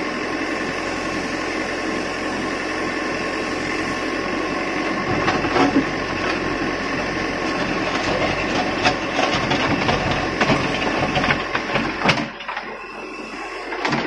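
Terex backhoe loader's diesel engine and hydraulics running steadily with a whine as the backhoe bucket digs into rubble, with stones clattering and scraping from about five seconds in. The machine's sound drops in level about two seconds before the end.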